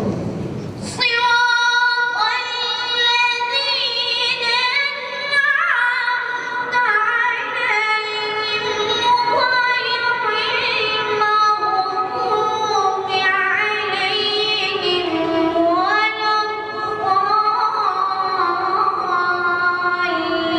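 A single high-pitched voice singing unaccompanied in long, ornamented melodic lines, starting about a second in.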